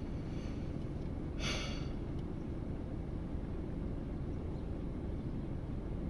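Steady low rumble inside a car's cabin, with a short breathy exhale about a second and a half in.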